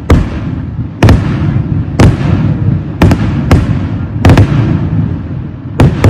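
Fireworks going off: a string of loud, sharp blasts, roughly one a second and sometimes two in quick succession, over a continuous low rumble of further explosions.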